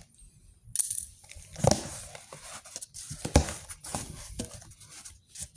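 Cardboard box being opened by hand: the taped flaps pulled apart and folded back, with rustling and crackling of cardboard and a few sharp knocks, the two loudest about a second and a half and three and a half seconds in.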